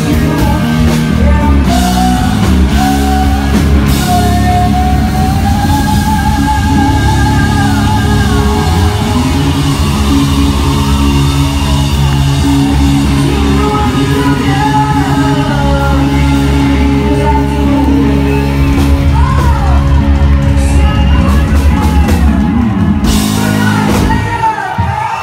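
Live hard rock band playing loud: a woman singing over distorted electric guitar, bass and drums. The song ends just before the close.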